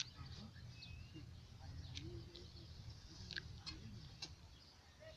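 Faint outdoor ambience: a handful of short, high chirps and clicks from small birds over a low, steady rumble.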